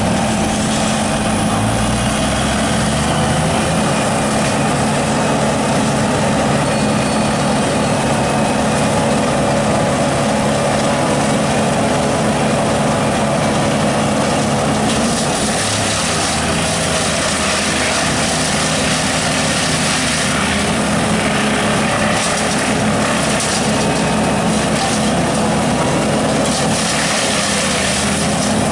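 An engine running steadily at an even pitch, with rougher, noisier stretches about halfway through and again near the end.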